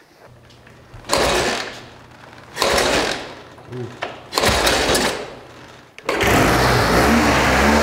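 1952 Triumph motorcycle engine being started: it turns over in three short bursts about a second and a half apart, then at about six seconds catches and runs steadily. This is its first start since a carburetor rebuild, after more than twenty years without running.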